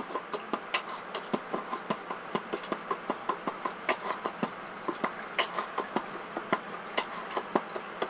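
Quick, uneven string of sharp mouth clicks and pops made into cupped hands, several a second, beatbox-like.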